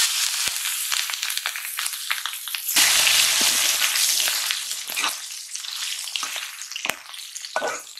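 Sliced onion and green chillies sizzling in hot oil in an aluminium kadai, stirred with a metal spatula that scrapes and clicks against the pan. The sizzle swells to its loudest about three seconds in and then slowly dies down.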